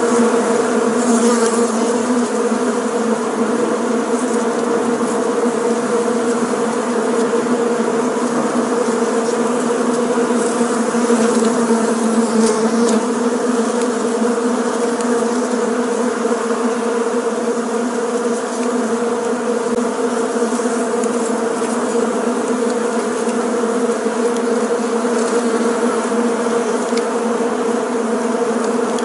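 Bees buzzing in one steady, unbroken hum.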